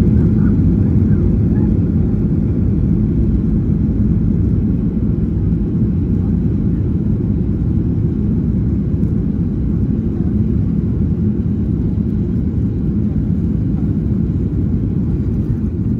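Inside the cabin of a Boeing 737 on its landing rollout: a deep, steady rumble of the engines and the wheels on the runway, slowly growing quieter as the airliner slows.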